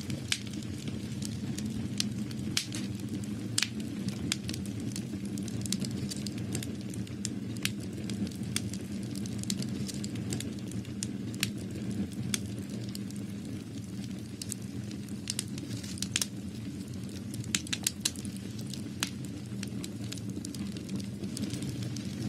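Continuous crackling: a steady low rumble with scattered sharp pops and snaps, several a second, in an irregular rhythm.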